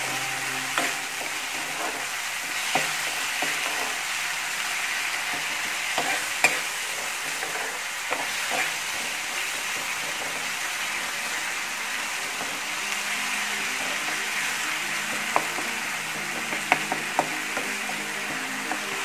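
Onion, ginger and garlic masala sizzling in hot oil in a frying pan while a steel spoon stirs and scrapes it, with sharp clicks of the spoon against the pan now and then.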